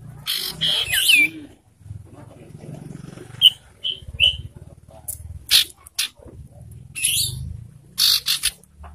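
Common iora calls: a series of short, harsh rasping calls, with a run of three short, clear whistled notes about halfway through.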